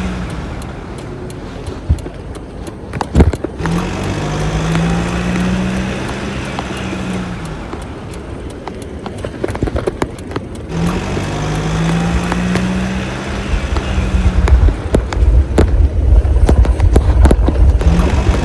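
Road noise from a moving bicycle ride, with sharp clicks and rattles, a low hum that swells in every several seconds, and heavy rumbling gusts near the end.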